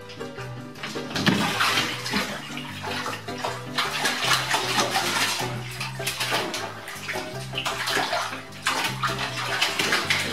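A cat splashing and thrashing in a full bathtub of water, paddling and scrambling against the sides of the tub to climb out. The splashing is choppy and keeps on throughout, loudest about a second in.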